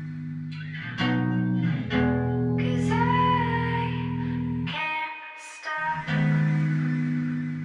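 Background music: a pop song with guitar and bass; the low end drops out briefly about five seconds in.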